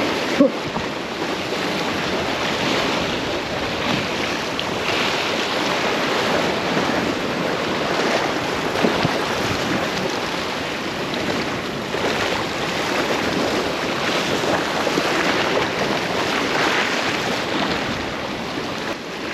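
Sea waves washing against a rocky shore, with strong wind buffeting the microphone: a steady rushing noise.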